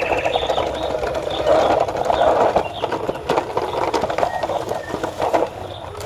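Radio-controlled toy dump truck driving over gravel and grass: its electric drive motor and gearbox whine under a gritty crunch with many small rattling clicks.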